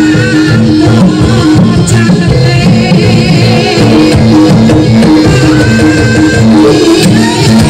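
Loud live jaranan music: drums and a steady, repeating pattern of pitched gong-chime notes, with a wavering melody line above.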